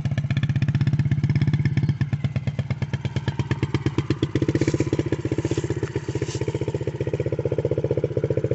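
Small single-cylinder off-road engine running with an even, rapid pulsing beat; its tone fills out about four seconds in.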